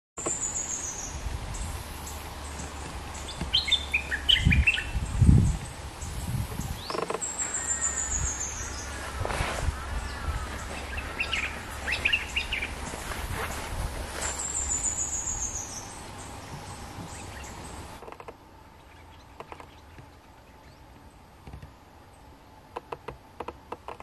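Stripe-throated bulbul calling: short chirping phrases, with a high, falling whistle that comes three times about seven seconds apart. Two dull thumps about five seconds in are the loudest sounds. After about 18 seconds the sound drops to faint, scattered clicks.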